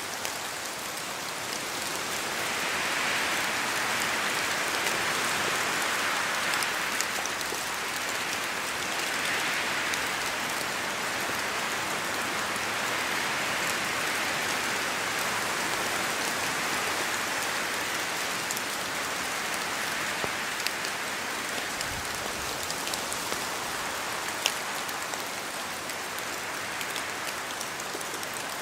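Steady rain falling on forest leaves, with scattered sharp drops falling from the trees; the hiss swells and eases a few times.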